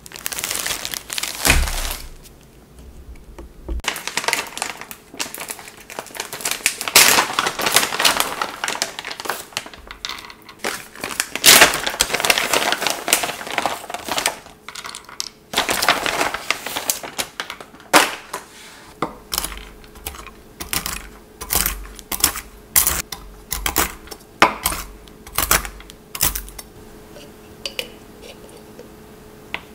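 Plastic zip-top bag crinkling and rustling, and a packet rustling as almonds are tipped onto a wooden cutting board. Later a chef's knife chops the nuts on the wooden board in a quick run of sharp knocks.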